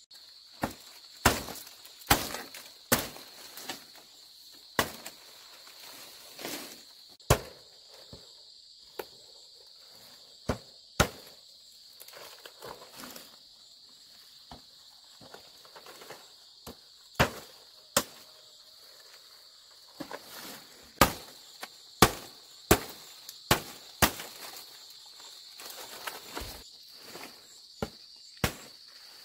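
A blade chopping bamboo: about twenty sharp strikes in irregular runs, with a lull of a few seconds in the middle. Insects chirr steadily underneath.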